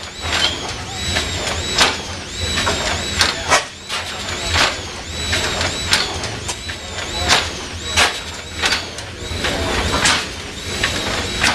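Large two-cylinder natural gas stationary engine running, with a steady low throb and sharp knocks at uneven intervals about once a second. A high squeak repeats about twice a second over it.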